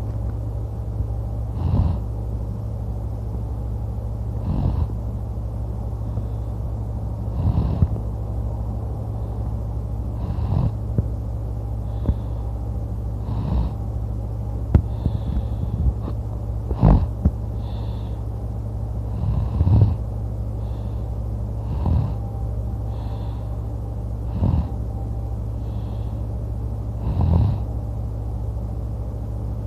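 A man snoring loudly in his sleep, one snore roughly every three seconds, over a steady low hum.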